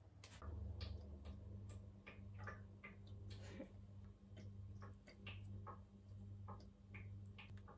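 Faint, irregular little clicks and taps of hands handling food on a wooden plate and pulling apart a fresh strawberry, over a low steady hum.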